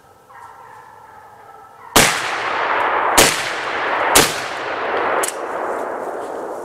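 Four loud gunshots about a second apart, each with a long echoing tail; the last one is fainter.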